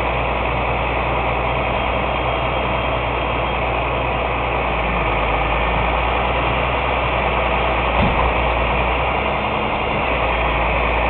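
Truck engine running steadily to power the grapple loader's hydraulic crane while it lifts a crushed van body, with a single clunk about eight seconds in.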